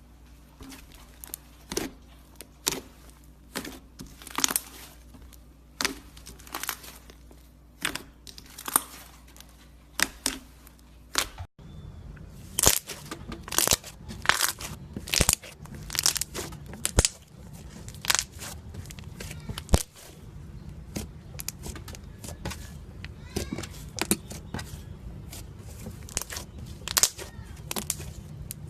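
Slime being squeezed and poked by hand, giving repeated sharp pops and crackles as air pockets in it burst. After a brief break about a third of the way through, a steady low hum sits under the pops.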